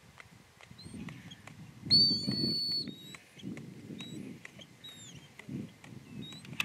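A dog whistle blown once, about two seconds in, in one steady high note lasting just under a second, as a handler signals a pointing dog out on a retrieve. Short high chirps are scattered through the rest, over a low rumble of wind or rustling.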